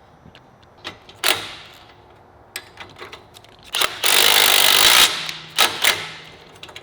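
Metal clinks and knocks of motorcycle motor-mount hardware being fitted into a chopper frame, a few separate strikes. About four seconds in, a loud hissing burst lasts about a second.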